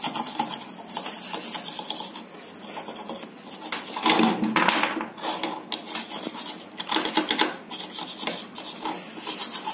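Brush bristles scrubbing a circuit board in quick back-and-forth strokes, a dry rasping scratch that gets louder about four seconds in.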